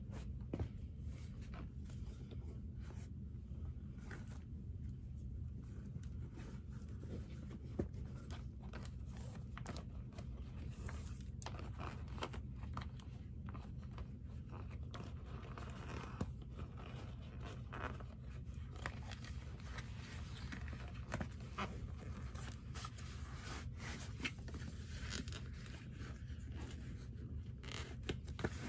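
Laces and stiff leather of Dr. Martens 1460 boots being handled: a string of short scrapes, rubs and clicks as laces are pulled through the eyelets and a boot is worked off the foot, over a low steady hum.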